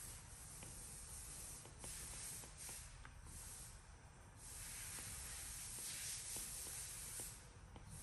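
Apple Pencil's plastic tip scratching and tapping faintly on the iPad Pro's glass screen during handwriting. The strokes come in stretches broken by short pauses, with a few small ticks as the tip touches down.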